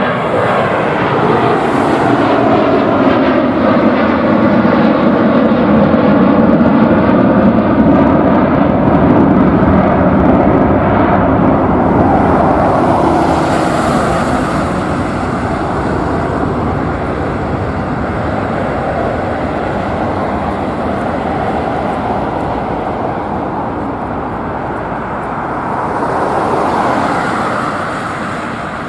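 Airbus A330-300 airliner's twin Rolls-Royce Trent 700 engines at takeoff power as the jet climbs out overhead. The engine tones slide down in pitch as it passes, loudest several seconds in, then the roar fades slowly as it climbs away.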